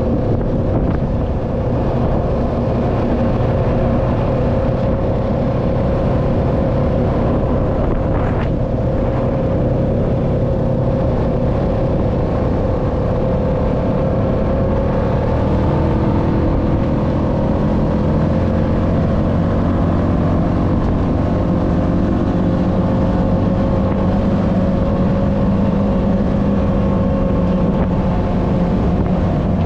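ATV engine running steadily while the machine is ridden, a held engine hum whose pitch shifts slightly about halfway through.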